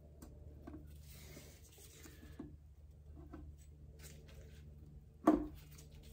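An oil pump being rocked and pressed down onto a 2.0 FSI engine block's locating dowels: faint metal-on-metal rubbing and scraping with light ticks, then a single sharp clunk a little over five seconds in as the dowel engages and the pump drops into place.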